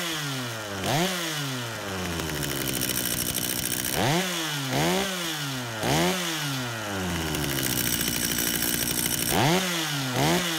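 Two-stroke chainsaw engine running with its bar and chain removed, throttle blipped again and again: the pitch jumps up and sinks back about nine times, with quick runs of blips near the middle and near the end. The saw is being run to check that its oil pump is delivering bar oil.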